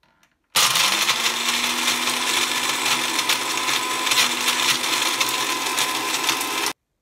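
Countertop jug blender switched on about half a second in: its motor spins up with a briefly rising hum, then runs steadily at high speed. Hard Party Ring biscuits clatter and shatter against the plastic jug as they are pulverised. The blending stops abruptly near the end.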